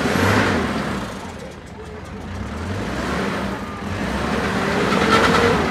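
Off-road Jeep Wrangler's engine revving under load as it crawls through a deep mud rut. It swells loud at the start, eases off about a second and a half in, then builds again toward the end.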